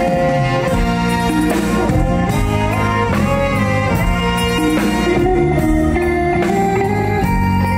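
Instrumental band music playing steadily, with no singing.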